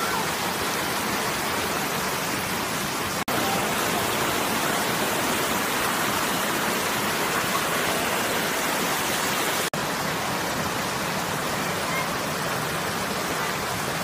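Waterfall cascade rushing over rock steps, a steady close-up wash of falling water, broken twice by a split-second gap.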